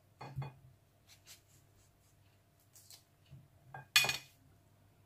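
Kitchen knife cutting through a peeled mango held in the hand, a few soft slicing strokes, then about four seconds in a sharp clink as the blade hits the plate.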